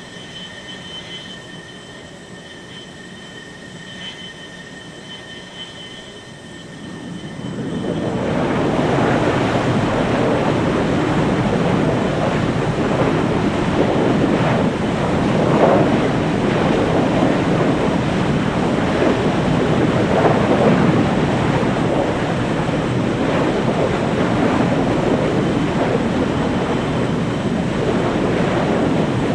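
Jet engine starting up: a steady high whine over a low rush, then about seven seconds in the roar builds over a couple of seconds as the engine lights and spools up, and it holds loud and steady.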